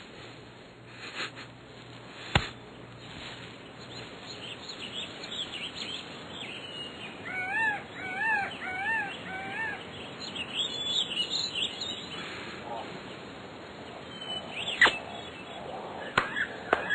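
Quiet outdoor ambience with birds chirping: a run of five arching whistled notes about halfway through, then higher twittering. A sharp click sounds about two seconds in and another near the end.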